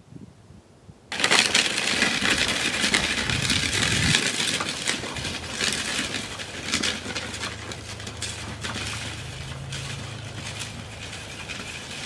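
Plastic wheels of a garbage cart rattling and scraping over an icy, rutted driveway as it is pushed along, fading as it moves away. A faint low steady hum runs underneath in the second half.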